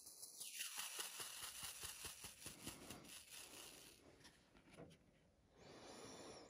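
Faint rustling and quick little clicks of square diamond-painting drills and their small plastic bag being handled, dying away about four seconds in.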